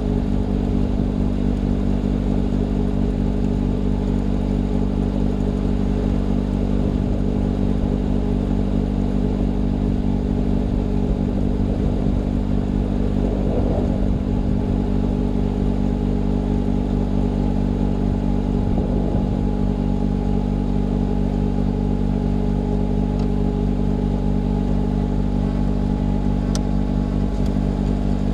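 John Deere 6110R tractor's diesel engine running at a steady speed, driving the snowblower through a snow drift. The engine note holds even throughout.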